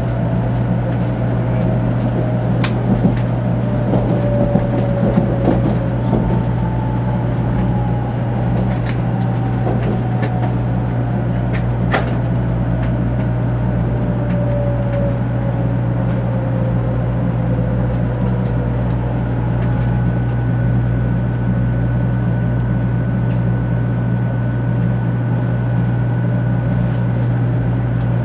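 Running noise of a 500 series Shinkansen heard from inside the passenger car: a steady low hum and rumble, with the traction motors' whine falling slowly in pitch as the train brakes into a station. A few sharp clicks in the first half, and a steady higher tone in the last third.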